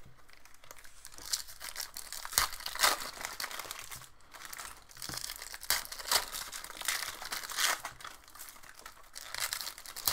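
Plastic wrapping on a box of hockey trading cards crinkling and tearing as it is opened, in irregular crackles.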